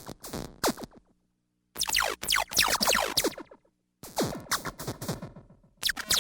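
Synthesized digital sound effects played one after another with short silences between, each a cluster of quick falling electronic pitch sweeps; about four separate effects.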